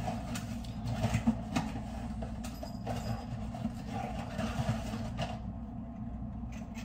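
Handling noise: rustling with scattered light knocks and clicks, easing off about five seconds in.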